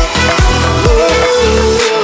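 Background electronic pop music with a steady thumping beat and a sustained synth melody; the beat drops out near the end.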